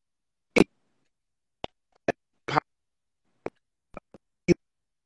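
Live video-call audio breaking up on a failing connection: about eight split-second fragments of a man's voice and digital clicks, each cut off abruptly, with dead silence in between.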